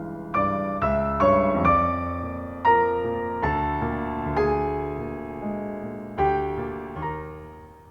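Solo piano playing a slow, gentle passage: single notes and chords struck every half second to a second and left to ring, fading out toward the end.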